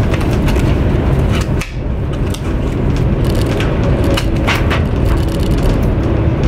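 Steady low rumble of a high-speed train's passenger cabin, with food packaging rustling and crinkling now and then: a plastic wrapper and an aluminium foil tray being handled.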